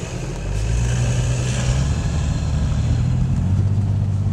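Engine running, heard from inside a vehicle's cab. It swells and its pitch shifts about half a second in, then drones on steadily.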